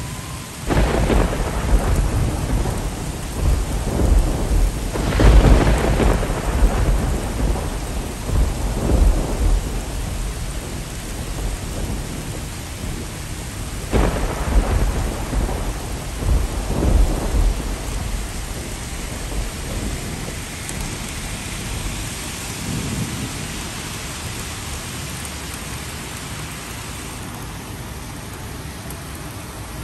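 Thunder over steady rain: a loud clap about a second in rumbles and rolls on for several seconds. A second sharp crack about fourteen seconds in rolls on for a few seconds more, after which only the steady rain remains.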